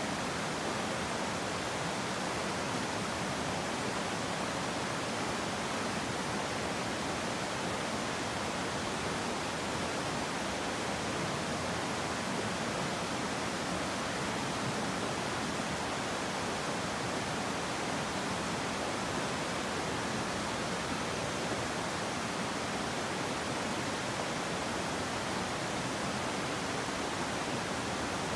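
Steady rushing of a gorge river's water, an even unbroken hiss.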